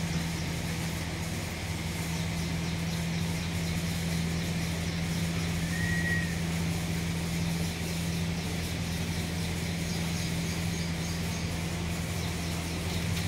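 A steady low mechanical hum, like a motor or engine running, with one brief high squeak a little after the middle.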